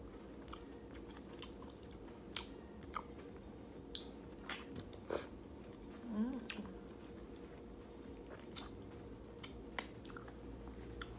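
A person chewing roasted tomato, with short mouth clicks at uneven intervals, the sharpest a little before the end.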